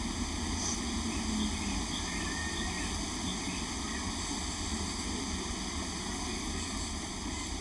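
Steady outdoor background noise with a low rumble, like distant traffic hum, and a few faint high chirps.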